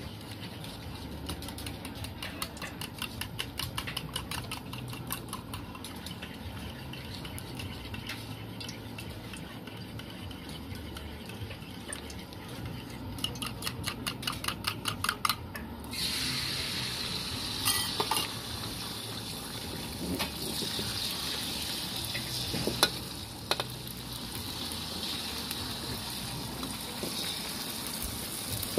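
Eggs beaten fast in a stainless steel cup, a rapid, even clinking of the utensil against the metal. About halfway through, the egg and minced pork mixture hits the hot oil in a wok and sets off a steady sizzle, with a few scrapes of a metal spatula against the wok.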